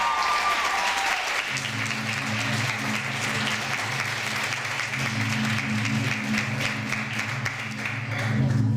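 Audience applauding, a dense clatter of clapping that dies away near the end. Low held music tones come in about a second and a half in and carry on under it.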